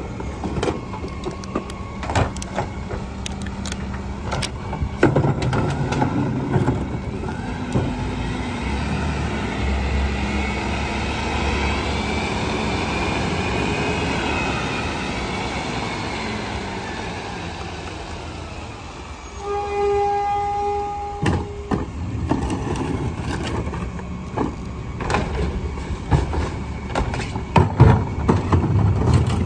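Rear-loading garbage truck working: its engine and hydraulic packer whine up and down through a compaction cycle, with clanks of metal throughout. A short, steady horn-like tone sounds about two-thirds of the way in. Near the end comes a burst of loud bangs as a trash cart is tipped into the hopper.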